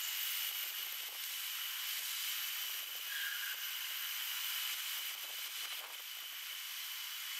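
Steady outdoor background hiss with a thin, constant high whine, and one brief faint note about three seconds in.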